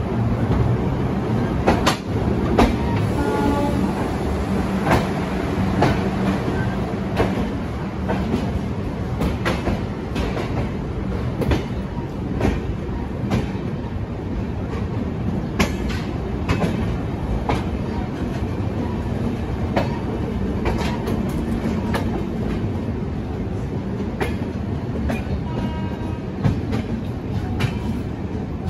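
Shatabdi Express passenger coaches rolling out of the station at low speed: a steady rumble with irregular clicks about once a second as the wheels pass rail joints and points.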